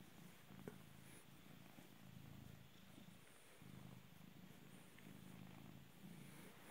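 Domestic cat purring faintly and steadily while being stroked, in long stretches that break briefly with each breath.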